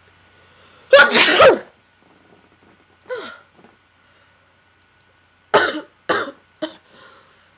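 A person sneezing, a sneeze brought on by tickling the inside of the nose with a damp cotton swab. There is one loud sneeze about a second in and a smaller one around three seconds, then three short sharp bursts in quick succession near the end.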